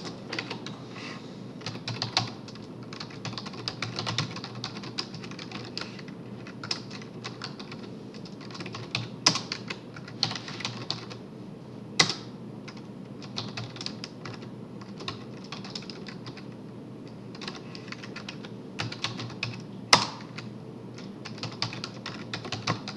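Typing on a computer keyboard: irregular runs of key clicks, with a few louder single key strikes about nine, twelve and twenty seconds in, over a steady low hum.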